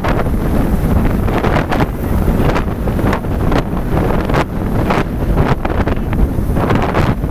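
Wind buffeting the microphone on a moving motorcycle: a loud rushing noise that surges and dips every fraction of a second and covers other sounds.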